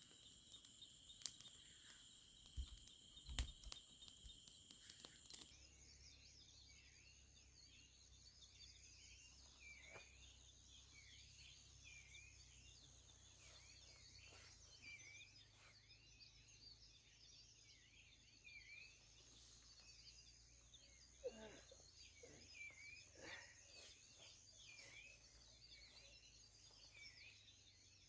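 Faint outdoor ambience: a steady high insect-like trill that stops abruptly about five seconds in, followed by soft, frequently repeated chirps and a few light knocks a little after twenty seconds.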